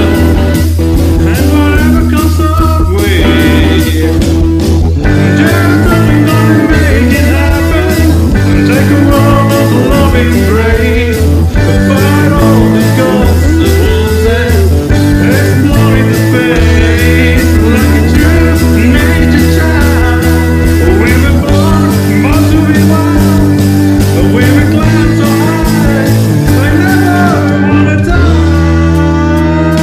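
Hard rock music with a driving bass line and drums under electric guitar, and a lead line that bends in pitch over the top.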